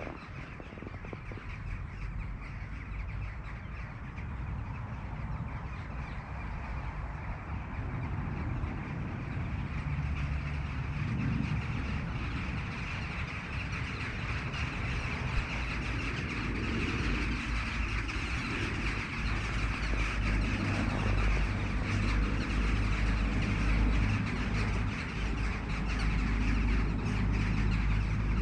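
A large flock of western jackdaws calling overhead, a dense chorus of overlapping chacks that grows steadily louder as the flock spreads across the sky, with a low rumble underneath.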